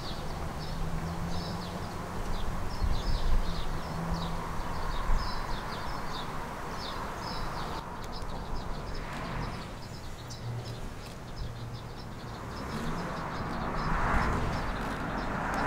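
Small birds chirping in quick repeated notes over a low steady hum. About halfway through the sound changes abruptly, and the noise of an approaching rail car swells toward the end.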